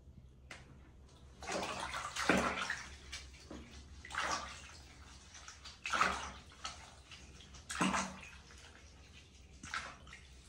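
A hand swishing and stirring water in a plastic basin, mixing bath water: a splashy slosh roughly every two seconds, about five in all.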